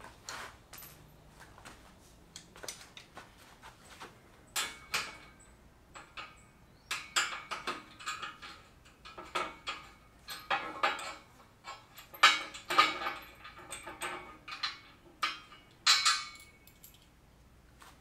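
Irregular metal clicks and clinks from a hand tool and bolts working against the steel frame of a dumbbell rack, as a mounting piece is unbolted and turned around. The clinks come in clusters, and several louder ones ring briefly.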